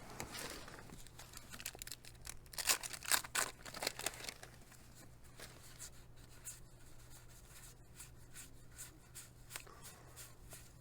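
Baseball card packs and cardboard cards being handled: wax-pack paper and cards rustling and crinkling, with a cluster of sharp crinkles about two to four seconds in and fainter handling after, over a steady low hum.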